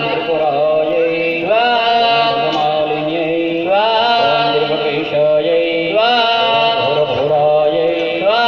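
Devotional mantra chanting sung to a melody, the same rising phrase repeating about every two seconds over a steady low drone.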